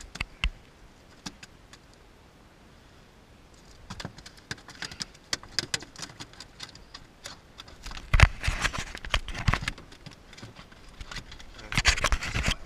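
Snook flopping and being grabbed on a fiberglass boat deck: a string of slaps, knocks and rattles. It starts after a quiet few seconds and is busiest in the second half.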